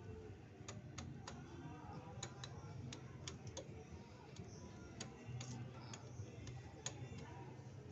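Drive chain and sprockets of a Viva R115 motorcycle clicking as the rear wheel is turned backwards by hand: about a dozen sharp, irregular ticks. The chain is catching on worn sprocket teeth, the sign of a worn chain kit (front and/or rear sprocket).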